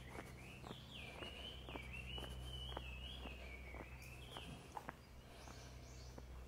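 Faint footsteps of a person walking on stone paving, about two steps a second, with a thin high tone wavering up and down over them for most of the stretch and a low steady hum beneath.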